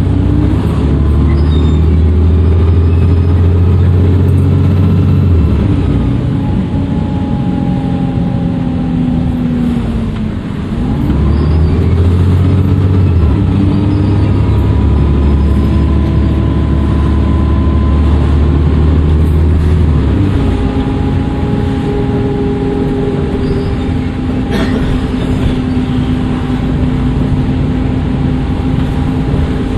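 Dennis Trident II double-decker bus engine pulling under load with its turbocharger whistling. It eases off shortly before halfway, then accelerates again with the engine note and whistle rising. It settles to a steadier, lighter run after about two-thirds of the way through.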